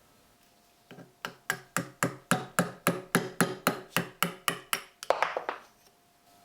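Hammer blows on metal, struck steadily about four times a second for about four seconds, each with a short ring, followed by a brief rattle.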